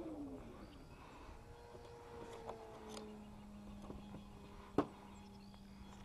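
Brushless electric motor and propeller of an E-flite Carbon-Z RC plane winding down, its falling whine fading out within the first half second. Then faint handling clicks, with one sharp click about five seconds in, over a faint steady hum.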